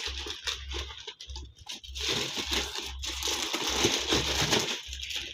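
A thin plastic carrier bag crinkling and rustling in irregular spells as a pair of shoes is pushed into it by hand.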